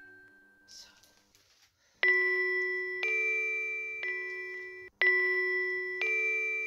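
Background music: after a short quiet gap, bell-like mallet notes are struck about once a second, each ringing on and fading.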